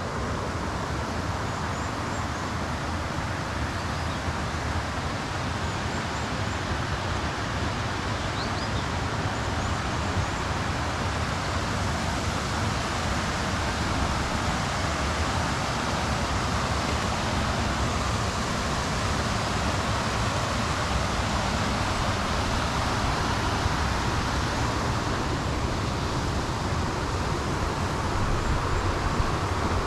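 Steady rushing of flowing river water, growing slightly louder, with a few faint high bird chirps in the first half.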